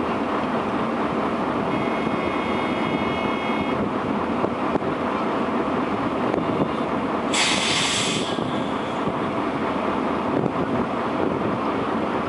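Diesel truck engine idling, a steady low rumble heard from inside the cab. About seven seconds in, a loud sharp hiss lasts about a second.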